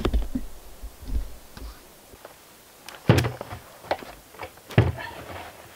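Hollow thuds and knocks from a plastic barrel being shifted and set in place against logs, with two louder thumps about three seconds in and near the end.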